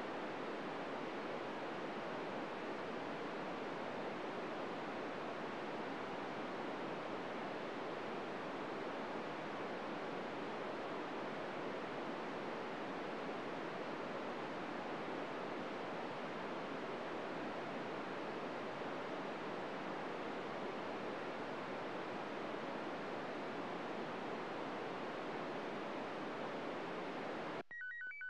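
VHF FM radio receiver on 145.800 MHz giving steady static hiss while no signal is received. Near the end the hiss cuts off suddenly and clean whistling tones of the International Space Station's slow-scan television (SSTV) transmission come through.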